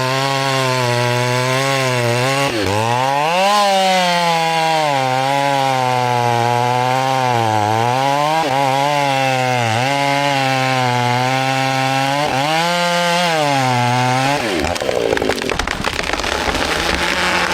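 Two-stroke chainsaw running under load in a cut, its pitch dipping and rising about every second and a half. About fourteen seconds in the saw note falls away, and wood cracks and crashes as the cut cedar breaks and falls.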